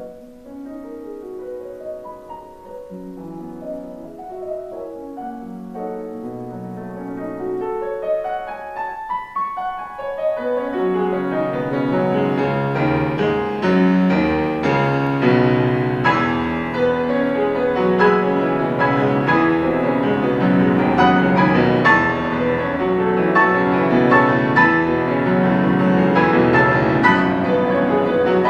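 Solo piano playing classical music: a quiet passage that swells after about ten seconds into loud, full chords spread across the keyboard.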